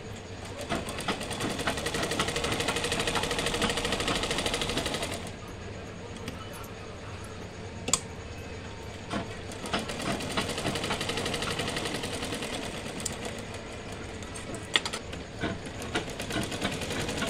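Sewing machine stitching fabric in three runs of rapid needle strokes, the first lasting about five seconds. Pauses with a few sharp clicks lie between the runs.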